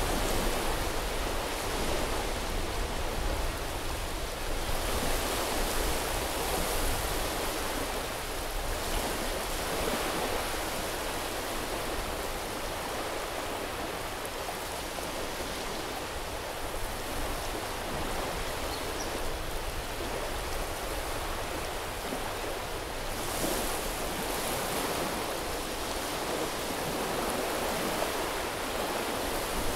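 Sea waves washing up on a beach: a continuous rush of surf that swells now and then as a wave comes in.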